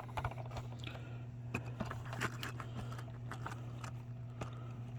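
Small, irregular clicks and taps of model trailer sections being handled and fitted together, over a steady low hum.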